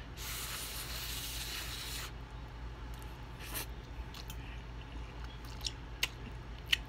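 Spicy instant ramen noodles slurped in with a hissing suck lasting about two seconds, then wet chewing with a few sharp mouth smacks and clicks.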